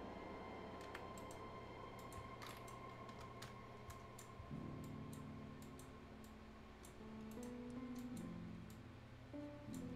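Computer mouse clicking, quiet single clicks at irregular intervals. Faint music with held notes comes in about halfway through.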